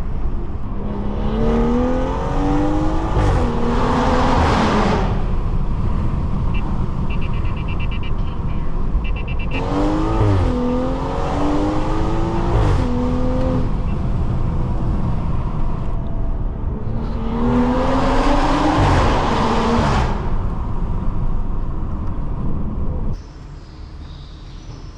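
Stage 2 tuned BMW 540i's turbocharged inline-six, with catback exhaust and downpipe, accelerating hard in three separate pulls; its pitch climbs and drops back at each upshift. About two seconds before the end it falls to a much quieter steady run.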